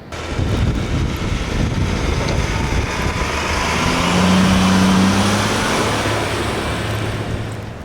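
A motor vehicle driving past: engine hum and road noise rise to their loudest about halfway through, then fade away.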